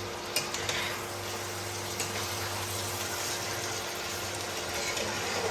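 Goat meat sizzling and bubbling in the water it has released in a frying pan, a steady hiss, with a few light clicks near the start.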